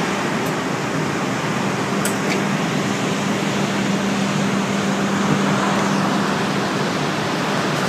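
Steady drone of running industrial machinery: a constant hum under an even rushing noise, unchanging throughout.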